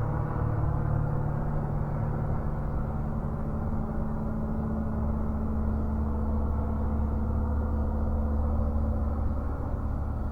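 Distant airplane passing overhead: a steady low rumble with faint droning tones that slowly fades as it moves away.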